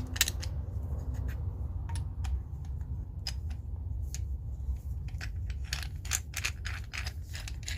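Irregular metal clicks and scrapes from an old steel adjustable wrench being handled and worked, sparse at first and coming thicker in the second half, over a steady low rumble.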